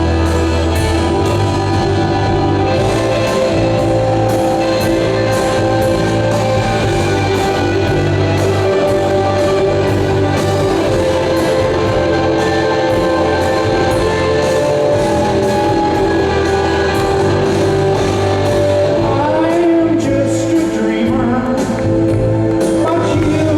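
Live rock band playing in an arena: electric guitar and drums over held, steady chords, with singing.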